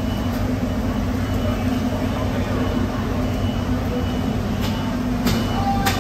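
Steady low mechanical drone with a faint high-pitched beep recurring every second or so, and a few sharp knocks near the end.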